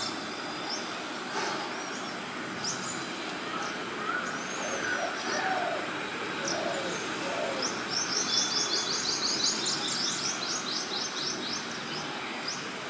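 Green bee-eaters calling: scattered high chirps, then a fast high trill of rapidly repeated notes for about three seconds in the second half, with a few lower calls around the middle over a steady background hiss.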